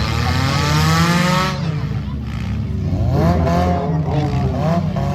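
Compact demolition-derby cars' engines revving hard, their pitch climbing over the first second and again from about three seconds in, over the steady running of other engines.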